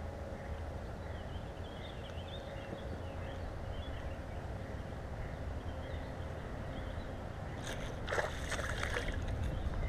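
A hooked fish splashing and thrashing at the water's surface, for about a second and a half near the end, over a steady low rumble.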